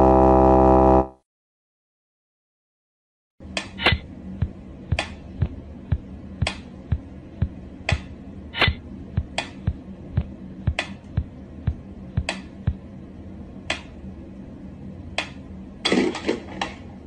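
A brief loud steady buzzing tone, then after a short silence a mechanical pendulum metronome ticking evenly, about two clicks a second. Near the end a quick flurry of louder knocks breaks in.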